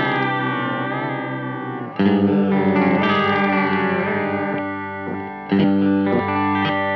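Electric guitar chords played through an Intensive Care Audio Fideleater modulation pedal, the notes wavering up and down in pitch. A new chord is struck about two seconds in and another about five and a half seconds in, each left to ring.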